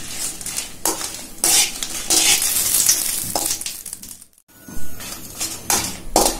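Dry red chillies sizzling in hot coconut oil in a kadai, stirred with a metal spoon that scrapes and clinks against the pan every second or so. The sound drops out briefly a little past four seconds in.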